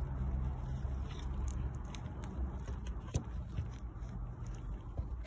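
Scattered light clicks and taps of a wrench and hands on metal around a timing belt tensioner, over a low rumble of handling noise, with a sharper knock right at the end.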